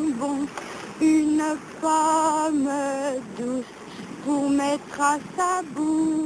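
A solo voice singing a slow melody in short phrases, with long held notes that waver in pitch and slide up and down between them.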